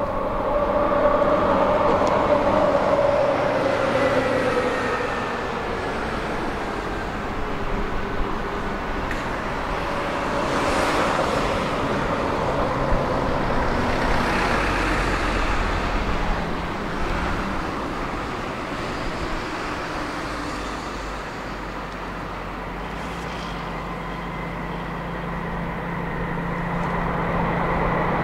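JR Freight DF200 diesel-electric locomotive hauling a container freight train as it approaches, a continuous rumble of engine and wheels that grows louder near the end, with a steady low engine note. A whine falls in pitch during the first few seconds.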